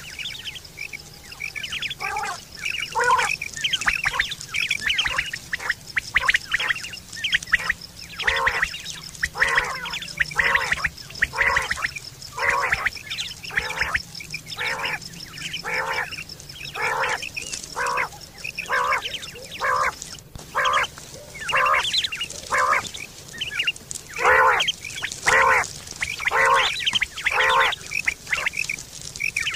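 Quail calling: a long series of short, harsh, nasal call notes repeated about one or two a second, coming in bunches with brief gaps.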